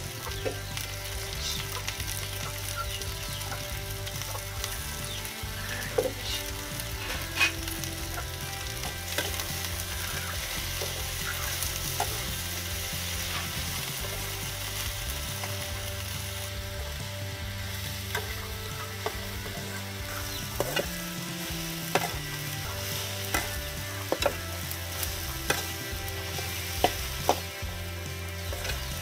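Chopped okra and onion frying in oil in a metal karahi, with a steady sizzle throughout. A spatula scrapes and clacks against the pan as it stirs, the clacks coming more often in the second half.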